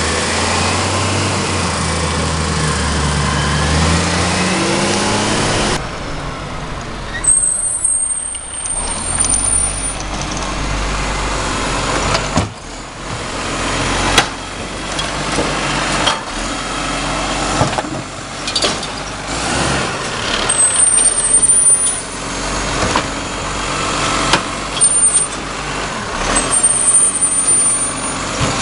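Side-loading garbage truck: the diesel engine revs up as the truck pulls away. Then the truck runs steadily while its automatic arm grabs, lifts and tips wheelie bins, with repeated knocks and clunks and several brief high squeals.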